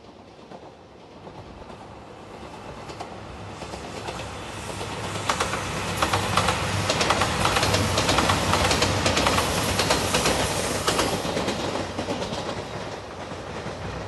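JR 2700 series diesel multiple unit train passing at speed: its rumble grows louder, is loudest in the middle with rapid clickety-clack of the wheels over the rail joints, then fades toward the end.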